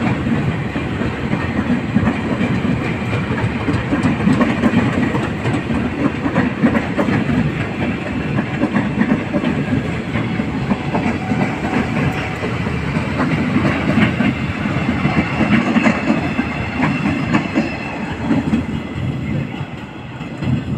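A steady mechanical rumble with a fast, dense clatter in it, dipping a little near the end.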